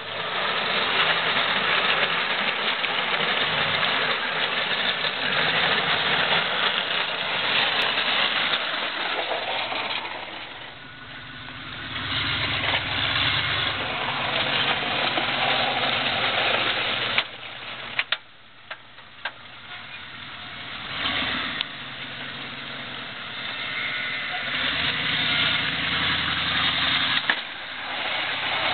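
Ford Bronco with a snowplow fitted, engine running as it drives up and past at close range and manoeuvres, with a steady hiss over the engine and a few sharp knocks about halfway through.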